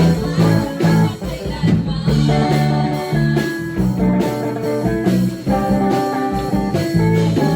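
Praise and worship music played on guitar over a bass line.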